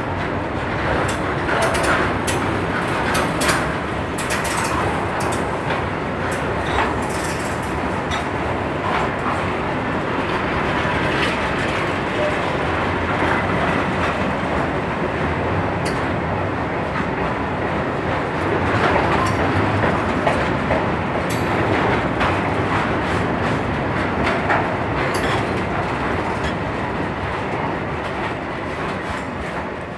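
Freight train of container wagons carrying tank containers passing close by at speed: a steady rumble of wheels on rails with many sharp clicks and clatters from the wagons. The noise drops off near the end as the last wagons go by.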